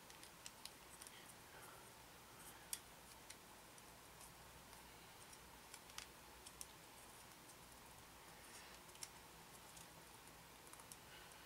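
Near silence with scattered faint clicks of small plastic model-kit parts being handled and pressed together by hand; the sharpest click comes a little under three seconds in.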